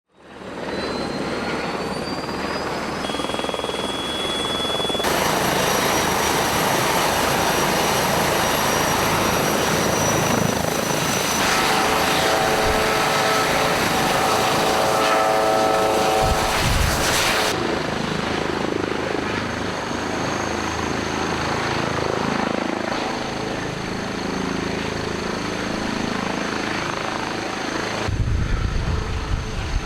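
Airbus H160 helicopter with Turbomeca Arrano turbine engines running, its turbine whine over rotor noise. A whine rises in the first seconds. The sound changes abruptly several times, as from one cut shot to another.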